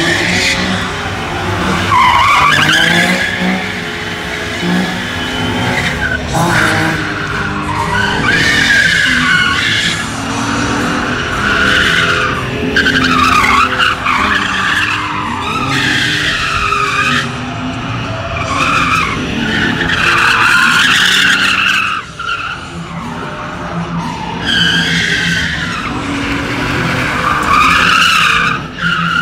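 Nissan 370Z's V6 revving hard while its rear tyres squeal and skid through donuts and drifts. The tyre screech swells and sweeps up and down in long waves over the rising and falling engine note.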